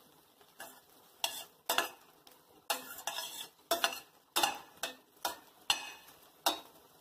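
Slotted steel spatula scraping and turning brown bread cubes around a stainless steel pan as they toast in ghee, in repeated strokes about one every half second, over a faint sizzle of frying.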